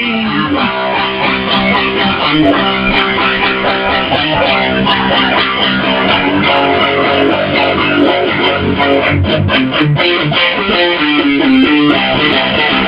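Instrumental break of a rock-style song, led by guitar, with no singing.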